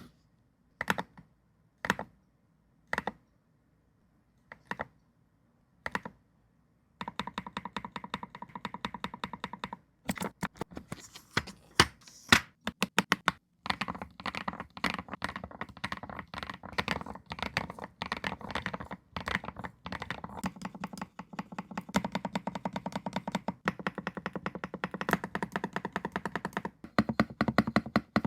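Typing on a KiiBOOM Phantom81 Lite keyboard fitted with polycarbonate jelly keycaps. First come a handful of separate clacks about a second apart, then fast continuous typing from about seven seconds in, over soft background music.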